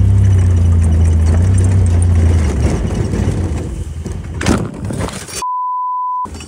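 Side-by-side UTV engine running steadily under way for the first two or three seconds, then fading into the rustle and scrape of brush as the machine runs off the trail, with a loud crunch about four and a half seconds in. A steady edited-in beep tone follows near the end.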